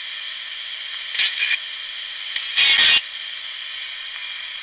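Spirit box, a radio sweeping rapidly through stations, hissing with steady static broken by two short, choppy bursts of radio sound, one about a second in and a louder one near three seconds.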